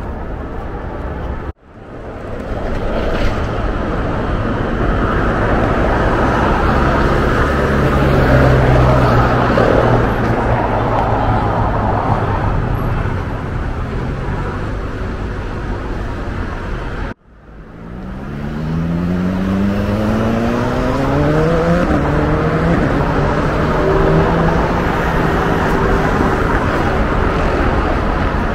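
City street traffic: steady road noise and engine hum from passing vehicles. In the second half a vehicle's engine rises in pitch as it accelerates away. The sound drops out for an instant twice.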